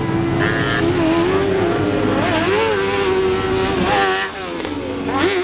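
Several off-road racing buggy engines revving up and down together as they race, their pitch rising and falling through the corners. The sound drops somewhat about four seconds in.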